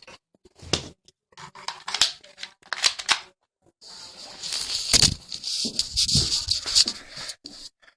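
Handling noise: a series of clicks and short scrapes, then a few seconds of rustling with one sharp loud click about five seconds in.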